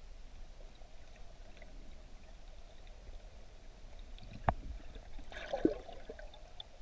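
Muffled underwater sound from a camera held under water: a steady low wash of water, with one sharp click a little past halfway and a short noisy burst about a second later.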